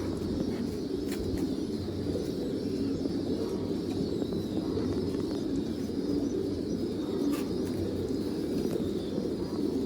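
A flock of domestic pigeons cooing together in a loft, a dense, steady chorus of overlapping low coos, with a couple of faint clicks.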